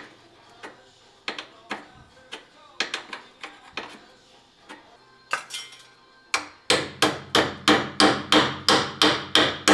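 Light metal clicks of a wrench on a brake line fitting. From about six seconds in comes a run of about eleven sharp hammer blows on metal, roughly three a second.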